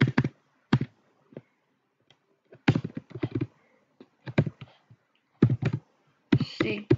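Computer keyboard keys being typed in short bursts of clicks separated by pauses.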